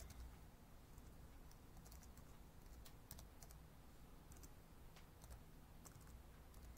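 Faint, irregular keystrokes on a laptop keyboard: someone typing.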